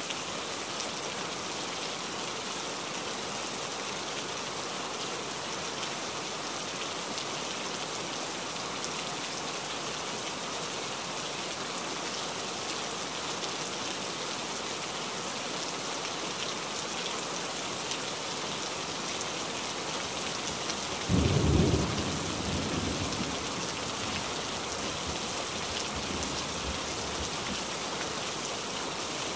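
Steady rain, with one clap of thunder about two-thirds of the way through that fades out over a few seconds.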